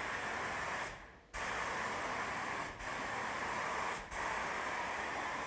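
Gravity-feed HVLP spray gun spraying paint: a steady hiss of air and atomised paint that breaks off briefly about a second in and dips twice more between passes.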